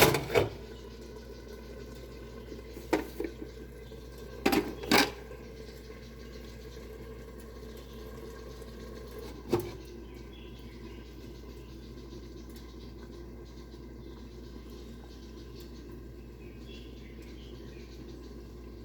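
Covered pot of rice porridge simmering on low heat: a steady low hiss, broken by a few sharp clicks and knocks in the first ten seconds, two of them close together about five seconds in.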